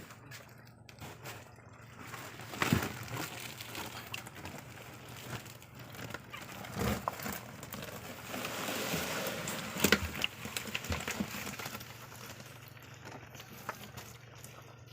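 Rustling and crackling handling noises with a few sharper knocks, as a bag holding freshly caught catfish is opened and the fish are handled.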